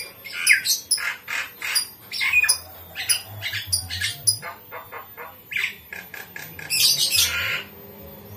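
Birds squawking: a rapid series of short, harsh calls that stops about seven and a half seconds in.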